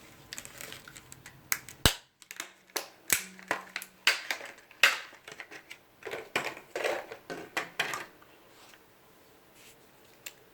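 Irregular sharp clicks and small clatters of plastic and metal parts being handled while a laptop RAM module is swapped, dying away about two seconds before the end.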